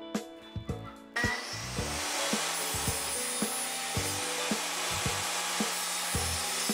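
Table saw cutting through a curved plywood table piece, a steady sawing noise that starts about a second in, with guitar music continuing underneath.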